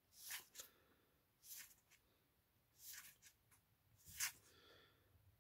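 A handful of short, faint swishes of trading cards sliding against each other as a stack of Magic: The Gathering cards is flipped through one card at a time; the loudest comes about four seconds in.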